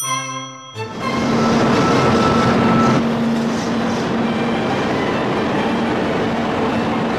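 A short musical jingle with a chime ends a little under a second in. Then a Kyushu Shinkansen 800 series high-speed train runs close past the platform: a loud, steady rushing noise with a low hum running through it, loudest for the first couple of seconds.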